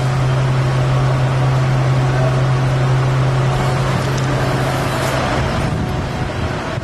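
A vehicle running: a steady low hum over a broad rushing noise, easing slightly about five seconds in.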